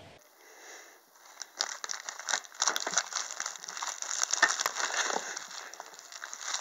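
Candy wrappers crinkling and rustling as they are pushed about, a dense run of small crackles that starts about a second and a half in and thins out near the end.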